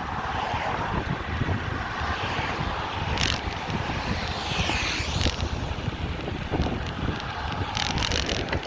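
Wind noise on the microphone of a moving bicycle, over steady street traffic noise. There are short rattles and clicks about three seconds in and again near the end, and a brief high-pitched sound about five seconds in.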